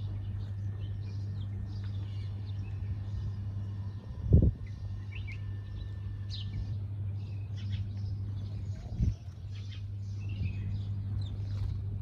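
House sparrows chirping in short, repeated notes over a steady low hum, with two brief low thumps, one a little over four seconds in and one about nine seconds in.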